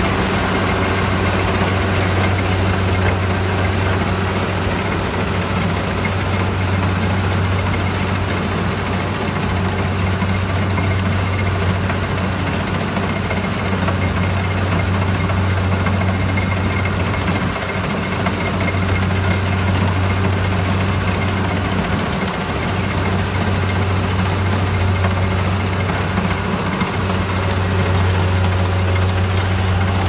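Small tracked rice combine harvester running steadily while cutting rice: a constant engine drone with the clatter of its machinery.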